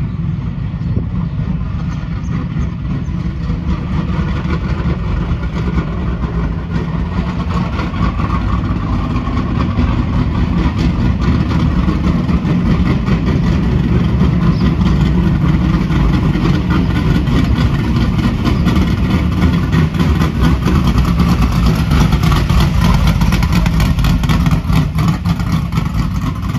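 Dirt-track race car engine running at low throttle as the car drives slowly up, growing louder as it nears; it is never revved hard.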